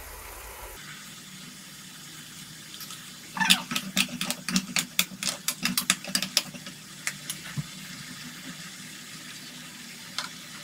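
Onion-tomato and ginger-garlic paste frying in oil in a pan with a steady sizzle. From about three and a half seconds in, a spatula scrapes and knocks against the pan in a quick run of strokes for about three seconds as the masala is stirred, followed by a few lone taps.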